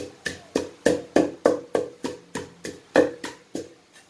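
Wooden pestle pounding dried chillies in a clay mortar: a steady run of dull thuds, about three a second, that stops shortly before the end.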